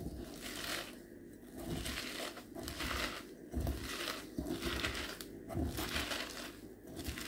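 Shredded young cabbage being squeezed and kneaded by hand with salt in a glass bowl, about one squeeze a second. The cabbage is crushed so that it releases its juice.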